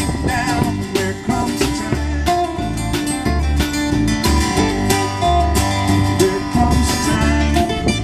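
Live acoustic roots band playing: acoustic guitar strumming and a resonator guitar over upright bass and a drum kit, with a steady beat.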